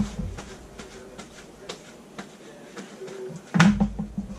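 Gloved hands patting raw chicken halves dry with a paper towel on a metal sheet pan: light rustling and dabbing, with a louder thump about three and a half seconds in.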